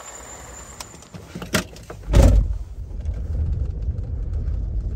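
A couple of light clicks, then a pickup truck door shutting with a heavy thud about two seconds in; after it the Ford pickup's engine runs as a steady low rumble heard from inside the cab.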